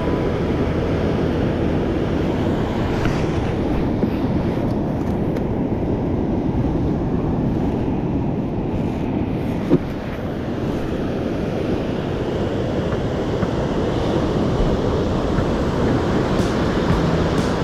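Sea surf washing steadily, with wind buffeting the microphone as a low rumble. There is a single brief knock about ten seconds in.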